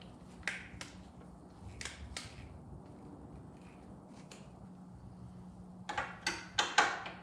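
A few scattered light clicks of a torque wrench being set and handled, then from about six seconds in a quick run of sharp clicks, about three a second, as a ratchet torque wrench works the motorcycle rack's bolts.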